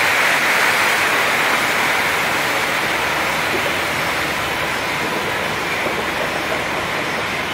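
Hot oil frying a batch of snack pellets in a stainless-steel batch fryer: a loud, steady sizzling hiss.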